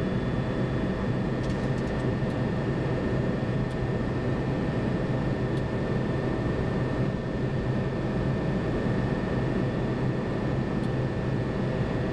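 Steady cockpit noise of a Boeing 737-200 in the climb: an even rush of airflow and engine noise with a few steady hums over it.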